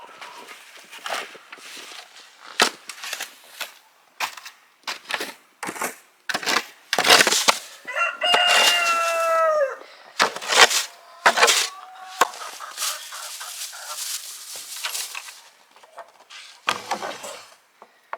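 A rooster crows once, about eight seconds in, a drawn-out call that drops in pitch at the end. Many short sharp knocks and crunches run around it.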